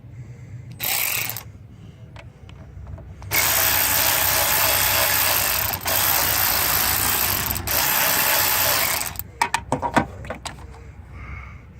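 Ratchet wrench with an 8 mm socket turning out a battery hold-down bolt. There is a short burst about a second in, then a long run of ratcheting from about three seconds in to about nine seconds, broken twice, and then a few sharp clicks and knocks.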